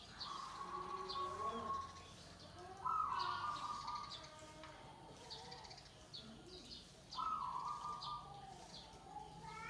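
Zebra doves (perkutut) cooing in three loud phrases: one right at the start, one about three seconds in and one about seven seconds in. Short high chirps from smaller birds come in between.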